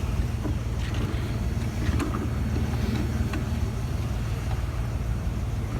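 Steady low rumble of a motor vehicle running, with a few faint knocks and rattles.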